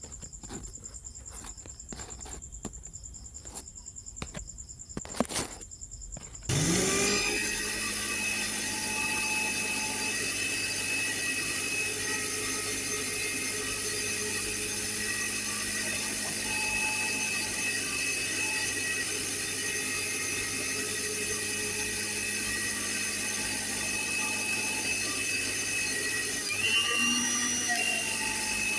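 A few light clicks and taps, then about six seconds in an electric blender starts with a rising whine and runs steadily, blending a mango smoothie. Its sound shifts a little near the end.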